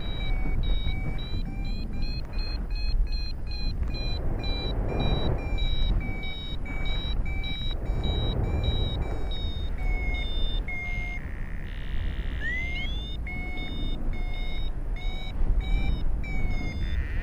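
Paragliding variometer beeping in quick, short high beeps, the climb signal that means the glider is in lift. About two-thirds of the way through the beeps give way briefly to one steady lower tone, then return as rising chirps. Wind rushes over the microphone throughout.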